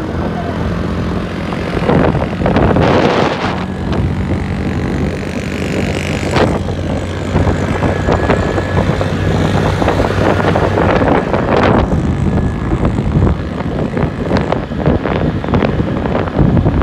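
Motorcycle engine running at a steady cruising speed while riding on the open road, with wind buffeting the microphone in gusts.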